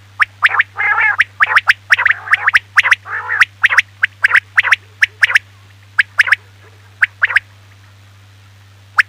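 Quail calling: a rapid run of short, sharp chirps and rasping notes, crowded together for the first five seconds and then only a few single notes, over a steady low hum.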